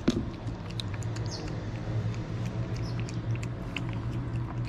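Two cats eating wet food chunks in gravy: irregular wet chewing and smacking clicks, with one sharp click right at the start, over a steady low hum.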